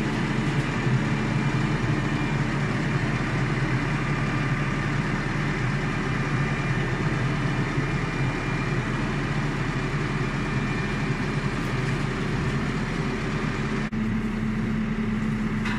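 A vehicle engine running steadily at an even pitch.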